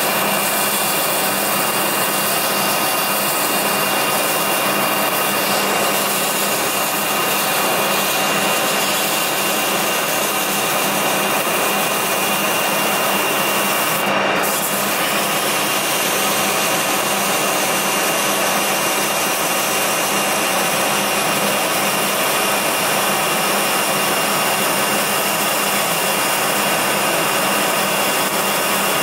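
An old flat file held against a steel pipe turning in a Colchester lathe, rasping steadily as it scrapes off the powder coating. The lathe runs underneath with a steady whine.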